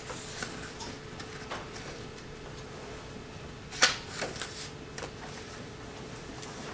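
Quiet room tone with scattered small clicks and rustles, one sharper click about four seconds in followed by a few lighter ticks, over a faint steady hum.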